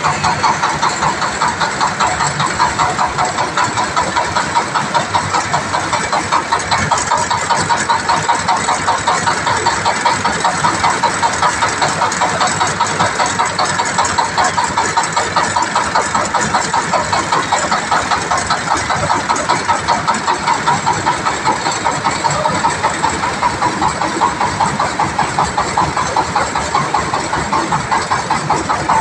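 Engine of a mobile rice mill (selep padi) running steadily with a fast, regular pulsing beat, driving the belt-driven huller machinery.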